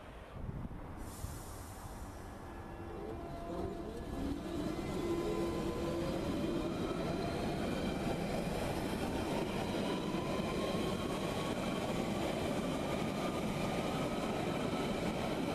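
London Underground Central Line 1992-stock tube train accelerating past, its traction motors giving a rising whine in several tones over wheel-on-rail rumble. It grows louder about five seconds in and then holds steady.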